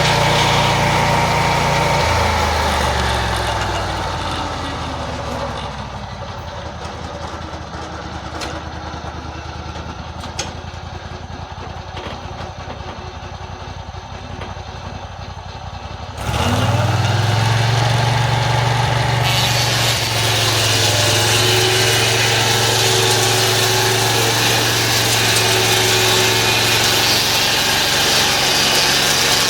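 Band sawmill's engine running at speed, then throttling down with a falling pitch a few seconds in and idling for about ten seconds. It revs back up sharply and runs steady at full speed.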